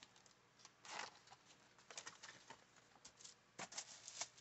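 Faint handling sounds: a few soft rustles and light taps as a planner and a roll of washi tape are handled on paper, with a small cluster of them near the end.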